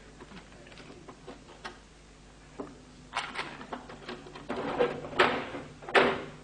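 Clattering knocks and clacks of desk work: a few light clicks at first, then louder, closer-spaced knocks from about three seconds in.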